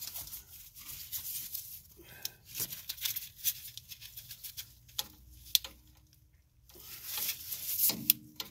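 Rustling and scattered clicks as gloved hands handle a foil-wrapped wiring harness and its plastic clip. The loudest rustle comes near the end.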